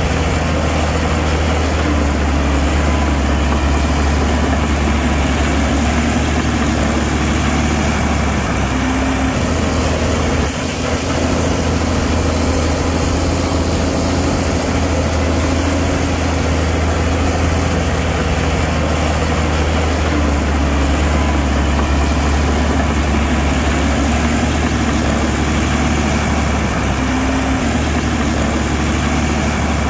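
Heavy earthmoving machine's diesel engine running steadily with a low, even hum, dipping briefly about ten seconds in.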